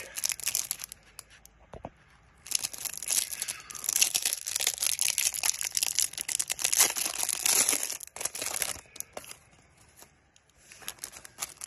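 Plastic shrink wrap being torn and crinkled off a stack of trading cards. A short crackle comes first, then a pause, then about six seconds of continuous crinkling and tearing. Lighter rustling follows near the end.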